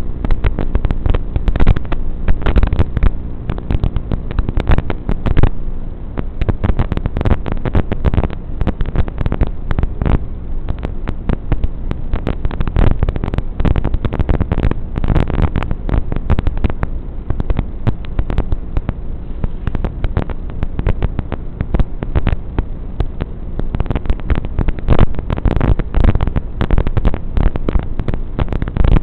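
Dense, crackling noise over a low hum, dull and muffled with nothing in the higher pitches. This is the typical sound track of an analog FPV goggle DVR recording.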